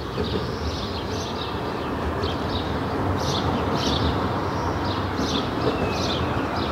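Outdoor ambience: a steady low rumble with small birds chirping again and again over it.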